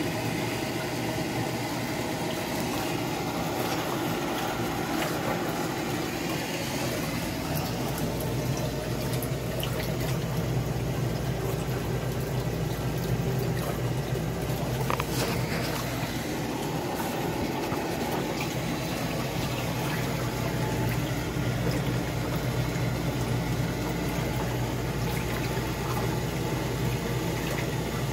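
A half-horsepower water pump running steadily with a low hum, while the water it returns churns and splashes in the hot tub.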